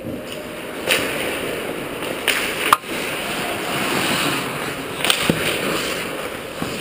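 Ice hockey skates scraping and gliding on rink ice, with a handful of sharp clacks from sticks and puck, the loudest just under three seconds in.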